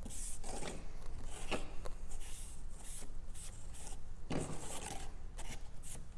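A paintbrush spreading white glue thinned with water across a cardboard plate: repeated short, scratchy brush strokes.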